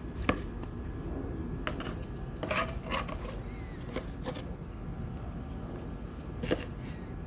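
Yorkie puppy being played with by hand, scuffling: scattered light clicks and taps, about half a dozen, over a steady low hum.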